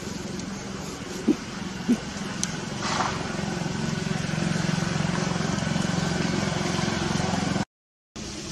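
Steady low hum of a running motor, getting louder about three seconds in, with two short knocks between one and two seconds in. The sound drops out briefly near the end.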